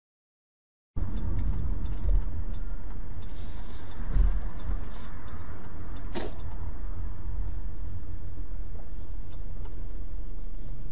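Steady low rumble of a car's engine and road noise, cutting in abruptly about a second in after dead silence, with one light click about six seconds in.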